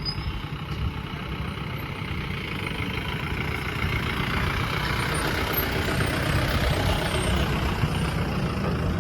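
Engine of the DJ vehicle running, a steady low drone with a broad noisy wash over it that grows gradually louder through the first half.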